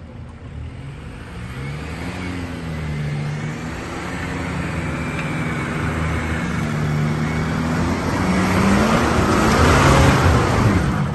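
Off-road 4x4's engine revving, its pitch rising and falling, growing steadily louder to a peak with a rush of noise about ten seconds in.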